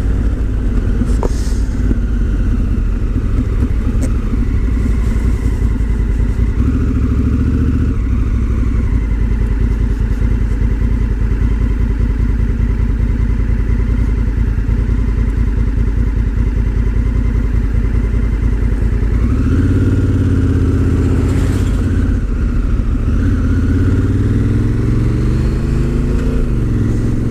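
Honda CRF1000L Africa Twin's parallel-twin engine running steadily while under way. About two-thirds of the way through the note rises and grows stronger, and near the end its pitch glides up and down with the throttle.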